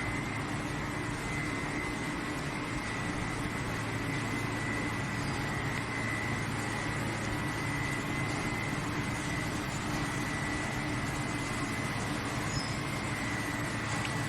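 Steady mechanical drone of coal-fired steam boiler plant machinery, with a low hum and a constant high whine.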